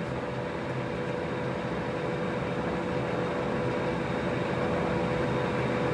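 Dean Smith & Grace Type 21 heavy-duty lathe running with its cross-slide on power feed: a steady mechanical hum from the gear train with a constant whine, growing slightly louder toward the end.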